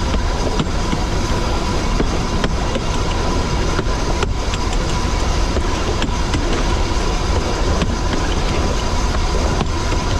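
A 2 ft 6 in narrow-gauge heritage train running along the line: a steady rumble with irregular clicks of the wheels over the rails and a faint steady high whine.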